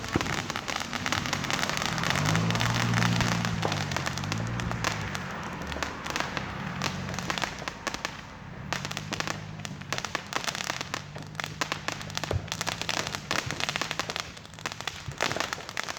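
Fireworks crackling: a dense, rapid patter of many small pops and bursts that thins a little about halfway through, with a low hum underneath for much of it.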